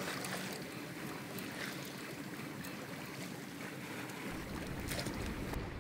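Water rushing along the hull of a sailboat under way, a steady hiss, with a low rumble coming in about four seconds in.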